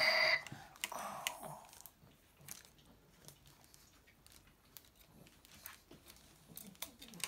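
Plastic parts of a Robozuna robot action figure being handled and fitted together, in faint scattered clicks and knocks. A steady electronic tone cuts off in the first half-second.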